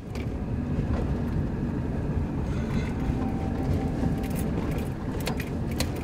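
Car interior noise while driving: steady engine and tyre rumble, with a few sharp clicks and rattles near the end.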